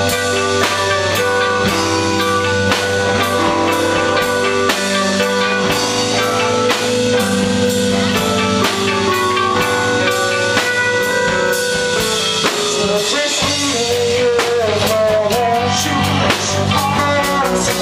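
Live rock band playing, with a steady drum-kit beat and guitar; a singing voice comes in about two-thirds of the way through.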